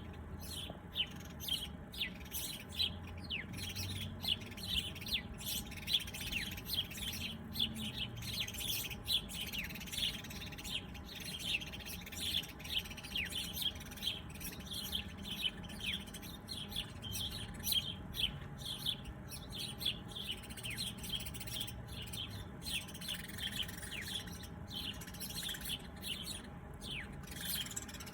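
Birds chirping: a dense, continuous stream of short, high, quickly falling chirps, several each second.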